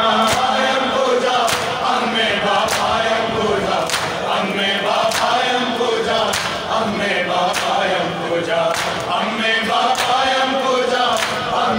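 A group of men chanting a noha lament in unison, with hands striking chests in matam in an even beat, about one slap every second and a quarter.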